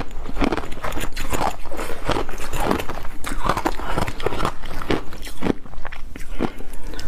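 Ice chunks dusted with matcha and milk powder being chewed close to a lapel microphone, with loud, irregular crunches about two a second.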